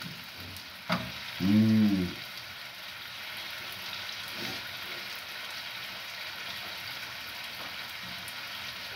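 Liver and eggs frying in pans on a gas stove, a steady sizzle throughout. A single sharp click just before one second in, and a short voice sound about a second and a half in.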